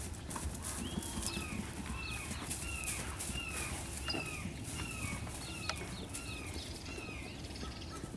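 A bird repeating a short falling call about twice a second, starting about a second in, over scattered soft hoofbeats of a mare and foal trotting on grass.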